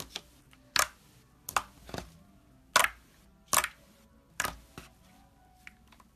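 Slime being squeezed and pressed by hand, giving a string of sharp, crisp pops and clicks about once a second.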